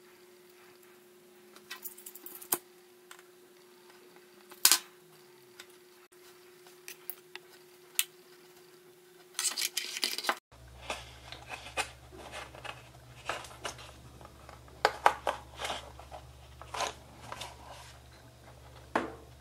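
Hand-handling noises of a repaired power cable and the black plastic housing of an LED disco ball light: scattered sharp clicks and taps with short rustles as the spliced cable is worked and pushed back into the case. About halfway through a faint low hum comes in under the clicks.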